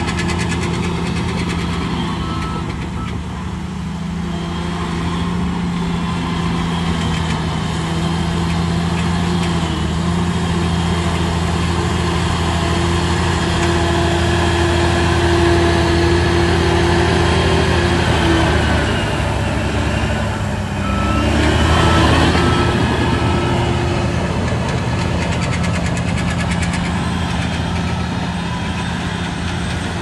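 Heavy diesel earthmoving machinery running steadily. About twenty seconds in the engine note dips, then revs back up, and a reversing alarm beeps through the later part.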